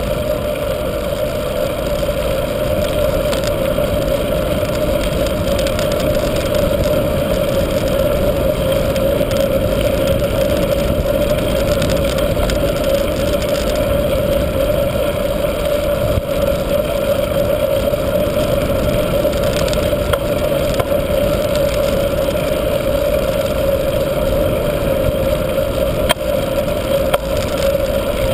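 Wind rushing over the microphone of a camera riding on a mountain bike, mixed with the tyres rolling on asphalt, under a steady hum.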